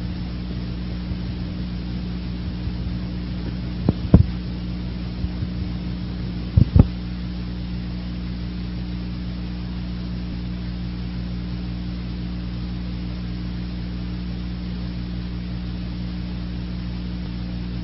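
Steady low electrical hum with a faint hiss underneath, the background noise of the recording itself; a few short knocks about four and seven seconds in.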